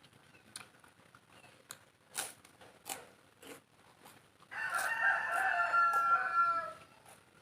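A rooster crowing once, one long call of about two seconds beginning about four and a half seconds in and dropping in pitch at its end. Before it, a few short, sharp eating clicks.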